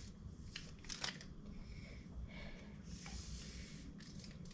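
Steel tape measure being pulled out and handled, with a few soft clicks in the first second and a brief rustle of the blade and clothing about three seconds in, over a faint steady low hum.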